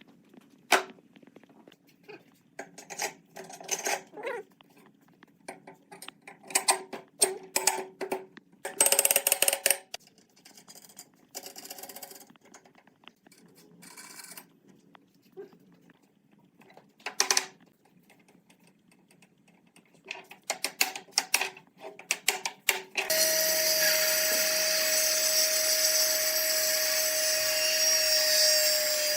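Scattered taps, clicks and knocks of wood and tools being handled, then about 23 seconds in a power tool starts and runs steadily at one pitch for about six seconds, winding down near the end.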